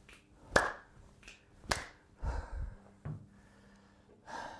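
A few sharp clicks about a second apart, with a short low knocking in between: hands working the controls of a 1972 Norton motorcycle, such as its choke lever, while the bike refuses to start.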